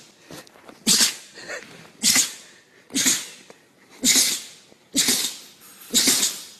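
A series of six sharp sneezes in a row, evenly spaced about one a second.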